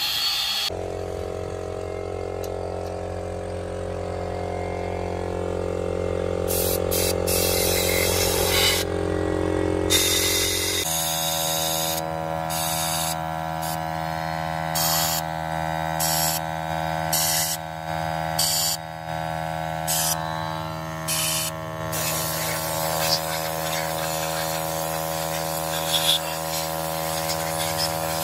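A machine running steadily with a buzzing hum, its tone changing abruptly about a second in and again about eleven seconds in, with short bursts of hiss switching on and off in between.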